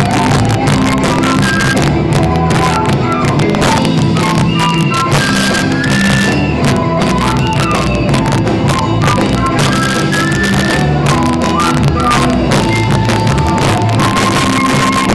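Loud Bolivian tinku dance music: a stepping melody carried over a steady, driving drum beat.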